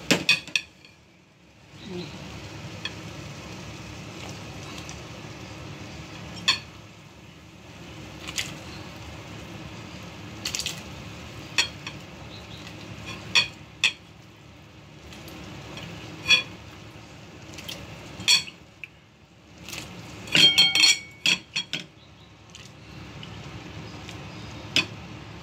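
Metal pots and utensils clinking and knocking over a steady low hiss, with a loud run of ringing metal clinks about twenty seconds in.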